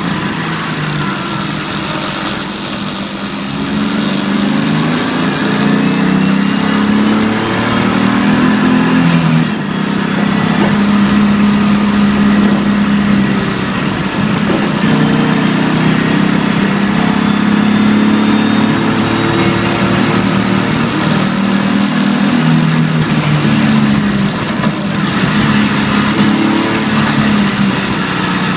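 BMW E46 325ti Compact's 2.5-litre straight-six heard from inside the cabin while it is driven hard. The engine note climbs and drops back several times as it revs through the gears and lifts for corners, over a steady hiss of road noise.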